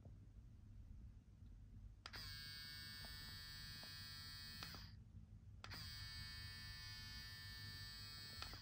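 Braun Series 7 electric shaver running with its shaving head removed, the exposed cutter blocks giving a steady buzz. It is switched on twice for about three seconds each, with a click at each start and stop.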